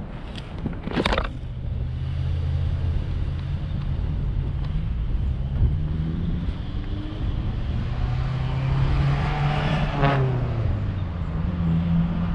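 A motor vehicle passing on the road: engine and tyre noise build to a peak about ten seconds in, then the engine pitch drops as it goes away. There is a short knock about a second in.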